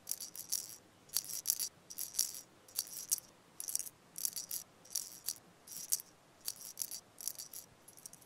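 A rattle shaken in short, crisp, even strokes, about two shakes a second, as a soundtrack effect.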